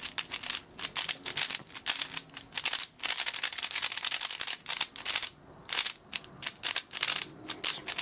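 Small 50mm Dayan Zhanchi 3x3 speedcube being turned fast by hand: rapid plastic clacking of layer turns, nearly continuous for a couple of seconds in the middle and broken by short pauses near the end. The cube is a little loose in its tension.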